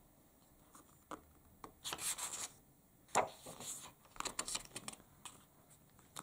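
Paper page of a picture book being turned and then smoothed flat by hand: a few dry rustles and rubs, with a sharper crisp rustle about three seconds in.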